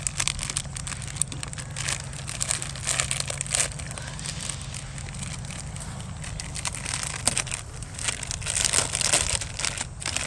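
Irregular rustling and crackling, dense clicks coming unevenly over a steady low hum, and busiest near the end.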